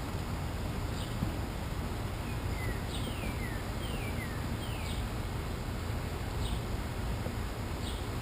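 A small bird calling over a steady low outdoor rumble: short high notes that slide downward, repeated about once a second, with a quick run of four or five of them in the middle.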